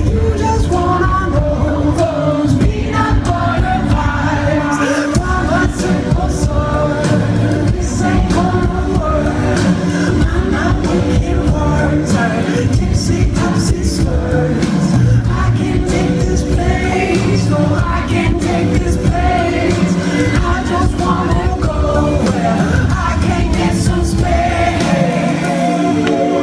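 Indie pop band playing live with a man singing lead over drums, bass and keyboards, heard loud from within the audience. The bass and drums fall away just at the end.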